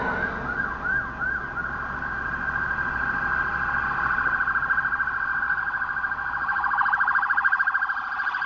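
Ambulance siren, heard from inside a vehicle: a few short rising-and-falling wails at first, then a fast warbling yelp that grows louder as the ambulance approaches.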